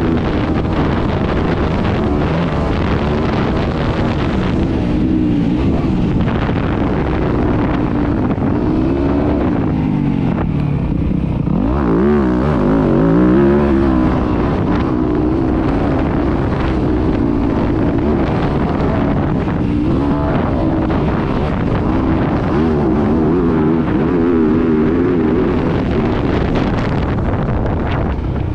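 Yamaha YZ250F's four-stroke single-cylinder engine being ridden hard, its pitch repeatedly rising and falling as the throttle is opened and closed through the corners and gears, with a sharp climb about twelve seconds in.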